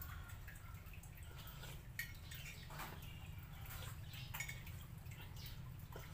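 A few faint, scattered clinks and taps of a spoon in a coffee cup as the coffee is stirred, over a low steady hum.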